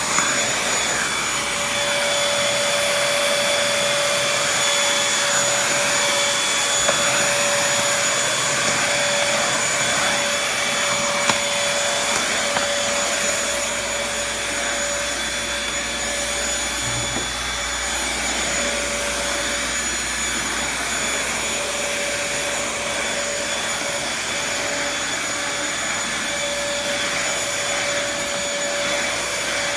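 Upright-style household vacuum cleaner running steadily with a constant motor whine. A few brief ticks come through as it works, and it gets slightly quieter about halfway through.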